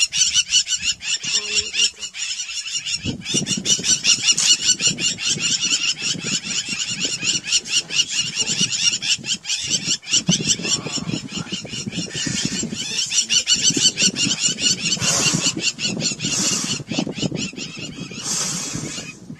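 Animal calls: rapid, repeated high chirping calls that keep on throughout, with stronger, uneven lower sounds joining from about three seconds in.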